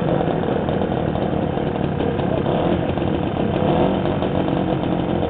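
Manet M-90 motorcycle's small two-stroke engine idling steadily.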